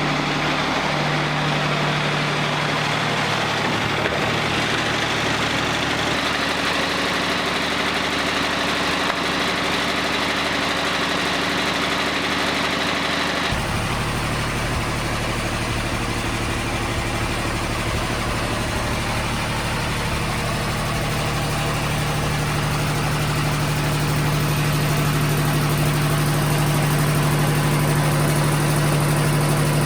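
Wood-Mizer LT40 Wide diesel sawmill running steadily, with the band blade cutting through white pine as an even hiss over the engine. About thirteen seconds in the sound changes suddenly: the hiss drops away and a deeper, steady engine hum takes over.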